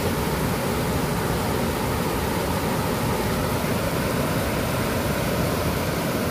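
Water pouring over a low concrete weir and churning into white foam below: a steady, even rushing.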